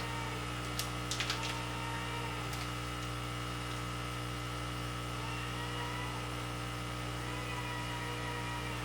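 Steady electrical mains hum, with a few light clicks about a second in.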